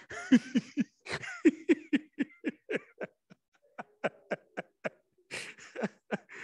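Laughter: a run of short, quick laughs, about four a second, that tails off after about three seconds into a few fainter chuckles.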